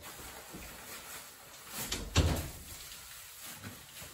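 A single dull thump about two seconds in, with a lighter knock just before it and quiet handling noise around it, as frozen food is packed into an open chest freezer.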